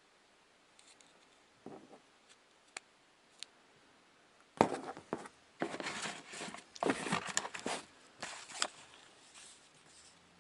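A few light clicks, then, about four and a half seconds in, several seconds of scraping and rustling as the foam packaging insert is pulled out of the cardboard box and the packaging inside is handled.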